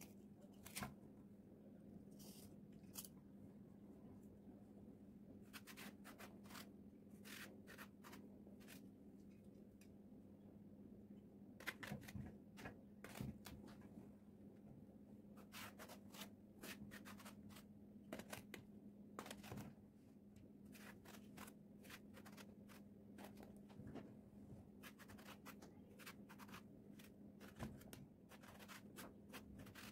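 Small kitchen knife cutting by hand through peeled aubergines and green peppers: faint, irregular crisp cuts and clicks, with a few louder ones. A steady low hum lies underneath.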